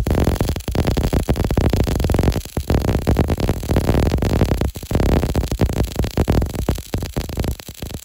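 Electronic background music with synthesizer.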